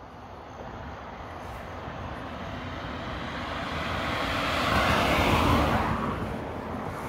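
A car driving past on the road: its tyre and engine noise swells as it approaches, is loudest about five seconds in as it goes by, then fades away.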